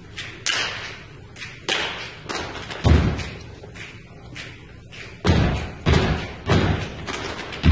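Percussion ensemble playing: a run of lighter high taps and clicks mixed with deep, ringing low drum hits, which come quicker, about every half second, in the last few seconds.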